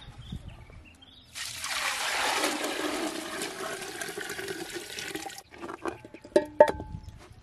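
Water poured from a plastic bucket into a three-legged cast-iron pot, a steady splashing rush lasting about four seconds. Near the end come a few sharp clanks with a short metallic ring.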